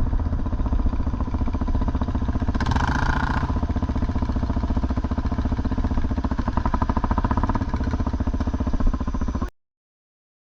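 Off-road motorcycle engine running steadily as the bike is ridden, with a brief high-pitched sound about three seconds in. The sound cuts off suddenly near the end.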